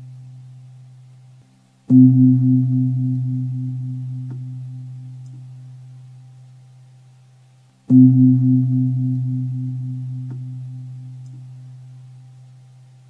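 A deep bell struck twice, about six seconds apart, each stroke ringing with a pulsing hum that fades slowly; the ring of an earlier stroke is dying away at the start.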